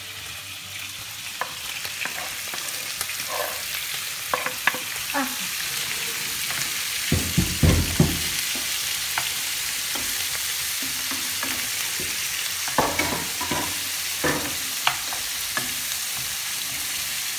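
Crumbled sausage and blanched wild fennel sizzling in oil in a nonstick frying pan, stirred with a wooden spoon that scrapes and taps against the pan. The sizzle swells over the first couple of seconds, and a few louder knocks come about seven to eight seconds in.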